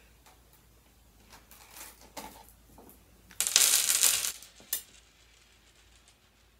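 Small hard sugar sprinkle beads poured into a clear plastic container, rattling in a rush that lasts about a second, starting about three and a half seconds in, with a single click just after.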